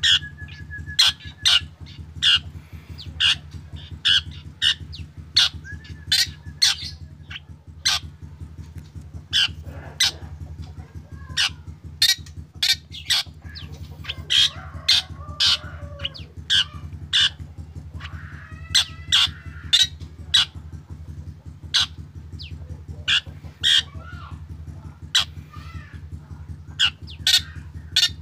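Black drongo calling: a rapid run of short, sharp, harsh notes, about one to two a second, broken by a few held whistled notes and chattering phrases.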